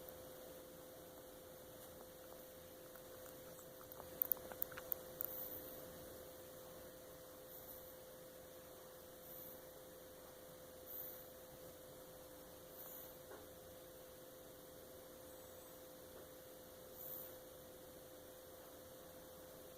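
Sleeping black pug puppy making faint sucking and smacking noises: a quick cluster of wet clicks about four seconds in, then a few softer single ones spaced through, over a steady faint hum.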